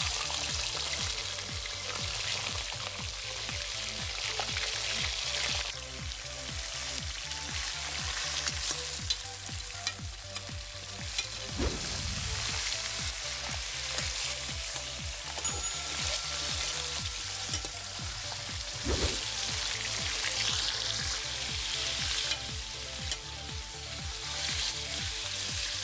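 Raw chicken pieces sizzling in hot cooking oil in an aluminium karahi as they go in and are turned over, a steady frying hiss. Twice the spoon clanks against the metal pan.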